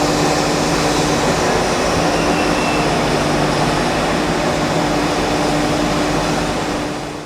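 Electric-hauled LHB passenger train running past: a loud, steady rushing rumble with a low hum under it. It eases slightly near the end, then cuts off suddenly.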